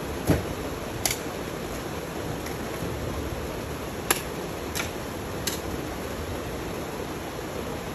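A hoe striking the soil in a handful of short, sharp hits, the first, about a third of a second in, the loudest and heaviest, over a steady hiss.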